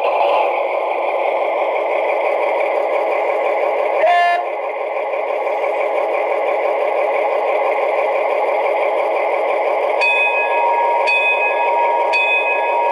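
Lenz sound decoder in an O gauge model of the DR V100 diesel locomotive, playing its diesel engine sound through the model's small loudspeaker: a steady engine run with no deep bass. A brief gliding tone comes about four seconds in, and a thin steady whine joins with a few short high tones from about ten seconds in.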